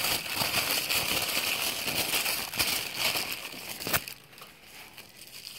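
Tissue paper being unwrapped by hand, crinkling and rustling with many small crackles, then dropping to a much quieter rustle about four seconds in.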